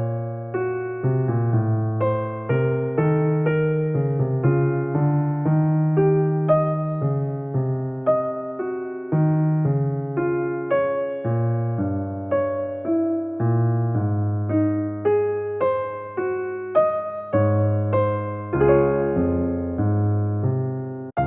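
Soft background music: a gentle electric piano playing a slow, steady stream of notes.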